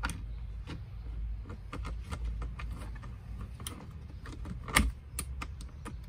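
Irregular light clicks and taps of small metal and plastic parts as a chainsaw carburetor is fitted by hand onto its mounting studs, with one sharper click about five seconds in.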